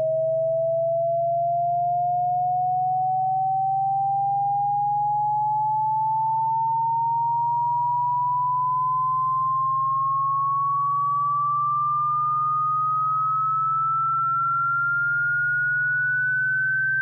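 Electronic cat-repellent tone: a single pure tone rising slowly and evenly in pitch, by more than an octave, over a steady low hum.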